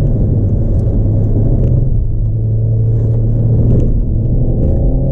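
Renault Megane RS Trophy's turbocharged four-cylinder engine driven hard on track, heard from inside the cabin as a steady low drone whose pitch begins to rise near the end as the car accelerates.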